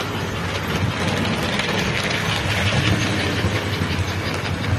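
American Flyer S gauge model train running on the layout: a steady electric motor hum with wheels rattling over the track, louder and brighter between about one and a half and three seconds in as it runs close by.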